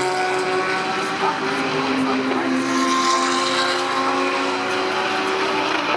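GT3 race car engines running hard on track, several at once, their pitch gliding up and down with speed and gear changes.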